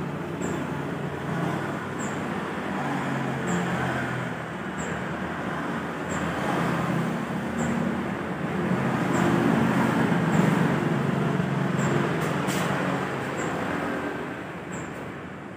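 Street traffic passing, with motorcycle engines going by; the engine noise swells louder for a few seconds past the middle, then eases off near the end.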